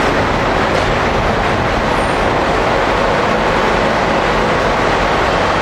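Recycling-plant machinery running: a loud, continuous, even machine noise with no distinct strokes or changes.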